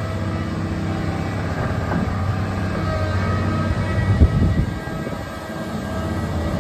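Komatsu PC600LC-8 crawler excavator's six-cylinder diesel engine running steadily under hydraulic load as the upper structure slews and the raised boom and bucket move. A short knock about two seconds in and a louder one about four seconds in.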